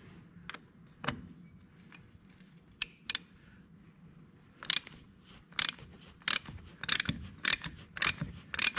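Hand ratchet clicking as it unscrews the drain plug of an excavator's final drive: a few scattered clicks at first, then about seven quick ratcheting strokes from about halfway through.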